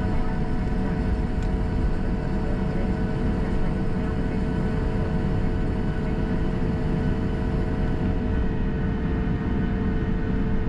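Boeing 737 cabin noise on the ground after landing: a steady low rumble from the airframe and idling jet engines, with a few steady tones humming over it.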